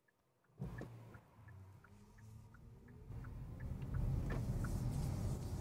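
Road and tyre noise inside the Kia EV6's cabin while driving, growing louder from about three seconds in. A faint rising whine can be heard, along with a light, regular ticking a couple of times a second.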